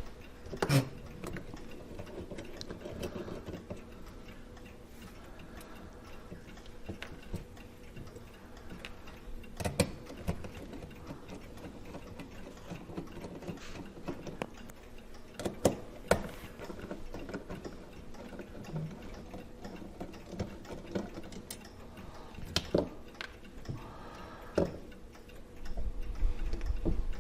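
Irregular small metallic clicks and taps from handling a Hermle clock movement and hand tools on the bench while it is being taken apart, with a handful of sharper clicks standing out and a low handling rumble near the end.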